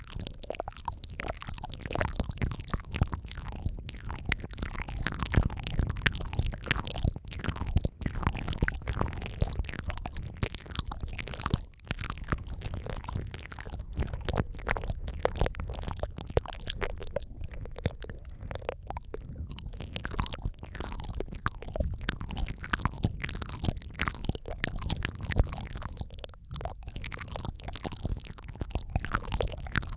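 Layered ASMR mouth sounds close to the microphone: a dense, continuous run of wet clicks, smacks and squishy mouth noises, several tracks overlapping.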